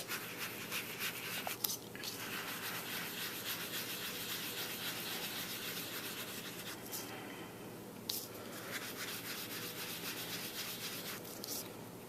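Ink applicator being rubbed over cardstock to blend ink onto it: a steady, fine scratchy rubbing that stops about seven seconds in and starts again about a second later.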